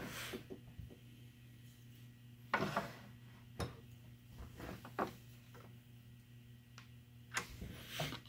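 Handling noises as a log blank is fitted between the centres of a wood lathe: scattered clicks and knocks, with a short scraping knock about two and a half seconds in, over a faint low steady hum.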